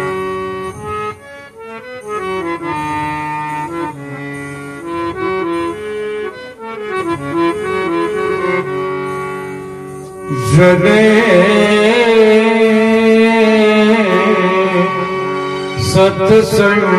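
Indian devotional bhajan music: a harmonium plays a stepping melody for about ten seconds. Then a male singer comes in loudly on a long, wavering held note, and a few percussion strokes sound near the end.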